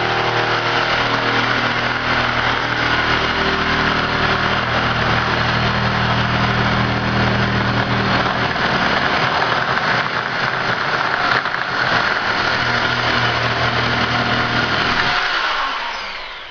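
Corded electric shear running steadily as it cuts a slit along thin-wall PVC sprinkler pipe. The motor stops near the end and the sound falls away.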